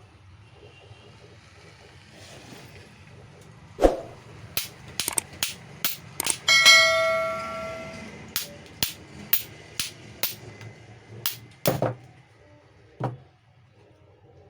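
A hammer striking the metal bearing and housing of a 4SB marble cutter during bearing replacement: about fifteen sharp, irregular metallic knocks. One of them rings on with a bell-like tone for over a second.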